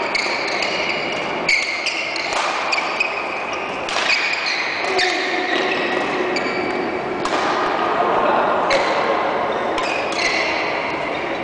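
Badminton rally: sharp clicks of rackets hitting the shuttlecock, along with frequent short high squeaks of shoes on the court floor, in a large hall.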